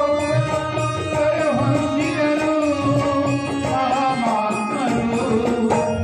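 A man singing a held, gently bending melody to harmonium accompaniment, over an even hand-drum beat, in Indian folk or devotional style.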